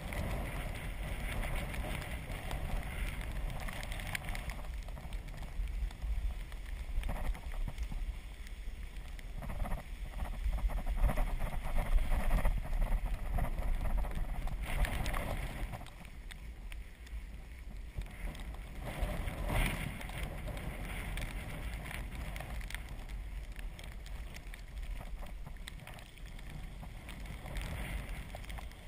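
Riding noise from an Azub recumbent trike on a wet, slushy road: wind rumbling on the mounted camera's microphone, tyre noise and scattered rattles. It grows louder for a few seconds about ten seconds in.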